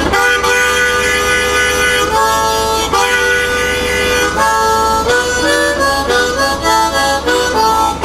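Harmonica played blues-style, held chords and single notes changing every second or so, cupped in the hands with a hand opening and closing over it to shape the tone.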